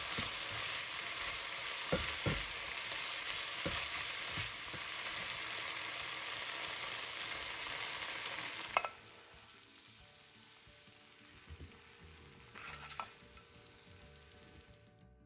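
Chicken and onion sizzling in a frying pan while being stirred, the slotted spatula clicking and scraping against the pan a few times. About nine seconds in the sizzle cuts off suddenly, leaving a much quieter stretch with a couple of light knocks.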